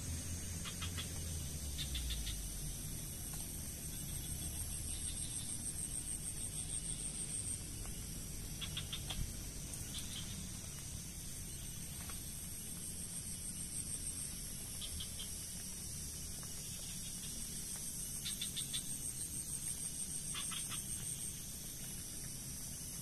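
Insects buzzing in a steady high chorus that swells and fades, with short trills of clicking calls from small creatures every few seconds.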